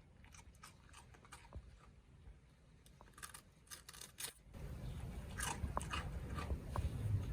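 Scattered crunching clicks that grow louder about three seconds in, joined about halfway by a low, steady rumble.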